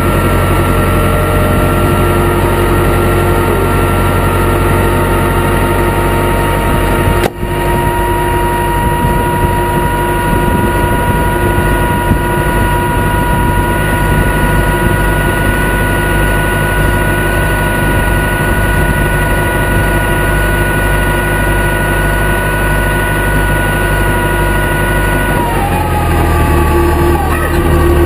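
The Gyro-X car's engine running at idle with steady whining tones over it, heard close up. There is a brief break about seven seconds in, and the tones shift in pitch near the end.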